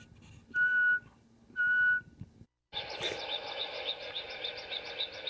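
Two steady high-pitched beeps, each about half a second long and about a second apart. After a brief cut, crickets chirp in a rapid, even rhythm of about four chirps a second, over a steady insect hum.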